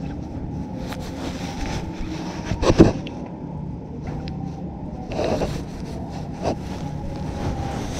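A cat brushing against and bumping a GoPro that lies on the floor: fur rustling on the camera, with a few knocks, the loudest a little before three seconds in, over a steady low rumble.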